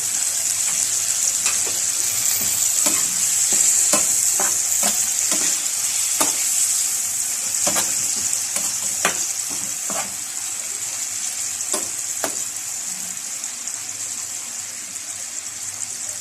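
Fried pork sizzling hard in a pan with freshly added soy sauce, being stirred; a utensil knocks against the pan at irregular moments about once a second. The sizzle eases somewhat in the second half.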